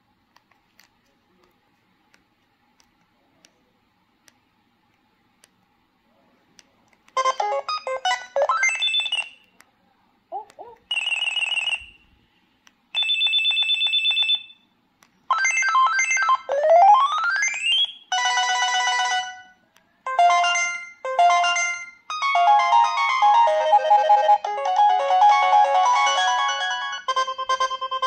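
Preloaded ringtones of an LG VX3400 flip phone previewing one after another from its speaker: short synthesized melodies, each cut off after one to five seconds as the next is selected, one with a quick rising sweep. The first several seconds are near silence with a few faint ticks.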